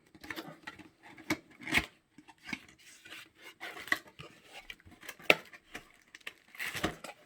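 Retail phone box being opened and its contents handled: irregular clicks, taps and scraping, with the loudest knocks about two, five and seven seconds in.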